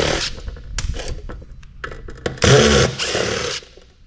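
Power screwdriver running in two short spells, the second longer and louder, backing screws out of the reader's housing.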